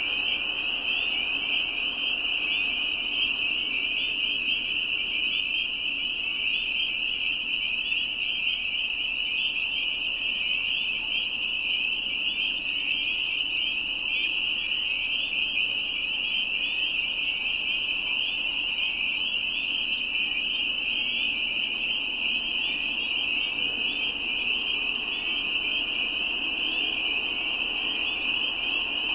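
Dense chorus of spring peepers: countless short, high, rising peeps overlapping into one steady, unbroken wall of sound.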